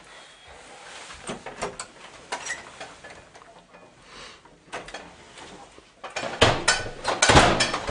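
Footsteps and the clicks of a front door being opened, then a loud run of knocks and rattles from about six seconds in as the door is pulled shut.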